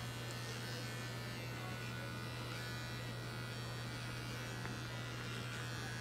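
Handheld electric pet clipper buzzing steadily as it trims the fur around a cat's rear end.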